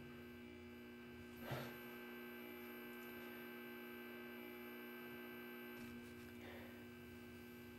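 Faint, steady hum made of several held tones, with a soft brief sound about a second and a half in.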